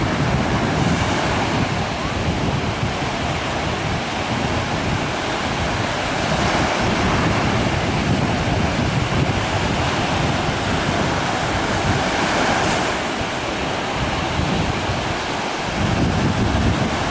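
Sea surf breaking and washing up on the shore in gentle swells, with wind rumbling on the microphone.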